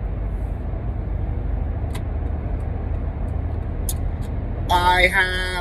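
Steady low rumble of background noise, with a couple of faint clicks in the middle; a voice starts speaking near the end.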